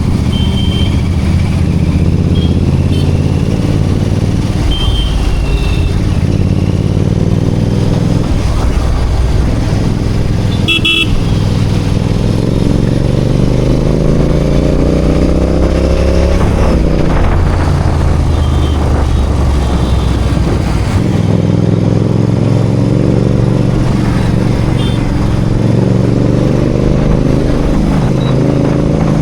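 Royal Enfield Continental GT 650 parallel-twin engine running in city traffic, its pitch rising as it accelerates about halfway through and again near the end. Short horn toots sound several times, the clearest a little over a third of the way in.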